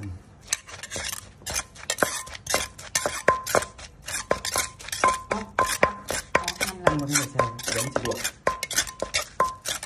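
Metal spoon stirring and scraping a chopped mushroom mixture in a clay mortar, clinking against the bowl about two to three times a second, many strikes with a short metallic ring.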